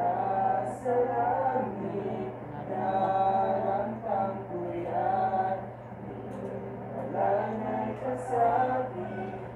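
A group of young men singing a song together, reading the words from their phones, with a steady low hum underneath.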